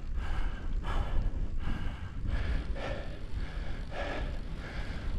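A cyclist breathing hard in quick, regular breaths while pedalling up a steep climb, with low wind rumble on the microphone.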